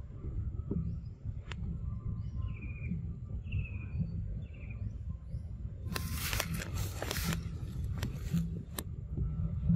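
Outdoor ambience: about four short falling chirps about two to four seconds in, then a burst of rustling and scraping around six to seven seconds, over a steady low rumble.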